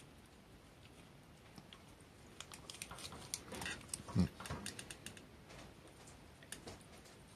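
Kitten licking a squeeze-pack cat treat held in a hand: a run of soft wet clicks and smacks, busiest in the middle, with one louder thump about four seconds in.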